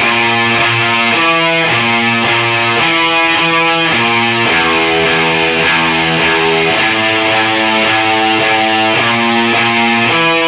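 Loud band music led by electric guitar playing a run of chords that change about every half second to a second.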